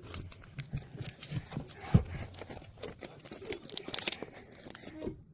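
Crinkling, rustling and tearing of paper or plastic, with many small clicks and one sharp thump about two seconds in.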